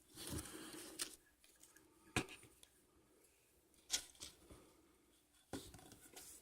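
Faint handling sounds of soldering work on a small circuit board: a couple of sharp light clicks and some soft rustling from small hand tools and the board.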